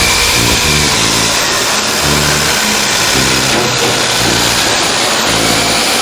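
Loud engine running, a harsh dense noise with low pitched layers that shift up and down.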